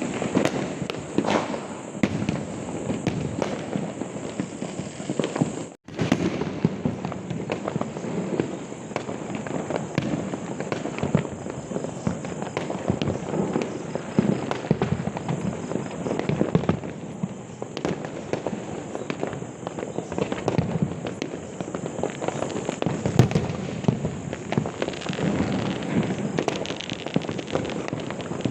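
Many firecrackers and fireworks bursting at once, a dense crackle of sharp pops that never lets up. The sound cuts out for a moment about six seconds in.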